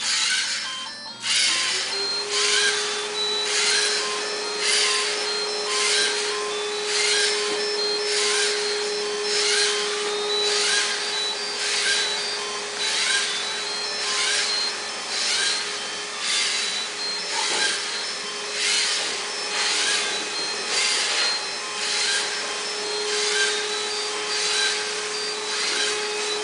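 LEGO Mindstorms NXT robot's motors and gear train whirring as it drives, a steady whine that starts about a second and a half in, with an even rasping stroke repeating a little more than once a second.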